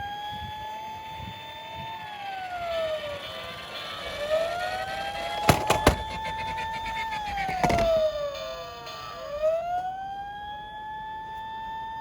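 Electronic siren of a toy emergency vehicle wailing: the pitch rises, holds and falls, repeating about every five seconds. A few sharp clacks come a little past halfway, with another shortly after.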